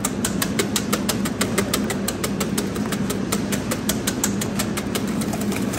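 Wire whisk beating eggs fast in a stainless steel bowl, its wires clicking against the metal about six or seven times a second, whipping the yolks and whites to a froth; the strokes thin out near the end. A steady low hum runs underneath.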